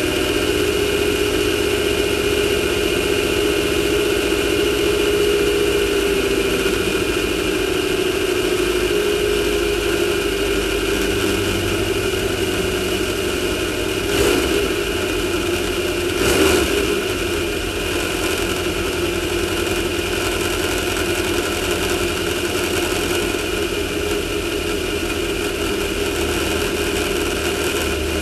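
Air-cooled VW 1600 flat-four of a Class 1600 off-road race buggy running steadily, heard through the onboard camera, with two brief thumps a couple of seconds apart about halfway through.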